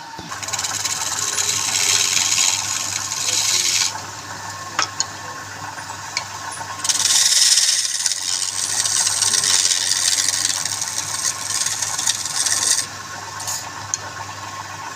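Wood spinning on a lathe with something rubbed against it in two long hissing passes, the first from the start to about four seconds in and the second from about seven to thirteen seconds in, with lighter rubbing between and after. A steady low hum runs underneath throughout.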